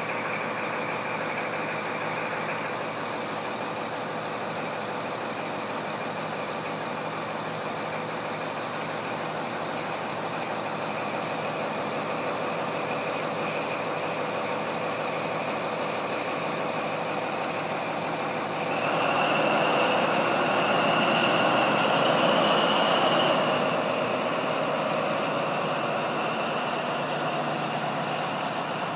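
HST Class 43 power car's diesel engine running steadily at the platform. About two-thirds of the way through it opens up louder with a high whine for a few seconds, then eases back a little as the train pulls away.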